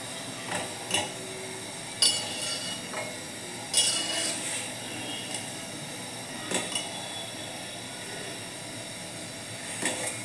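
Metal kitchen utensils clinking against a vessel: a few sharp clinks with brief ringing, the loudest about two seconds in and just before four seconds, lighter ones around six and a half seconds and near the end.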